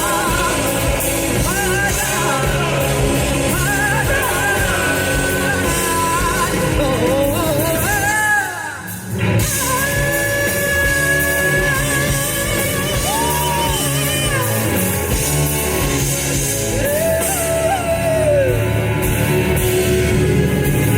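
Live rock band playing loudly, with a singer holding long, sliding wordless notes over the band. The music dips briefly about eight seconds in, then comes back in full.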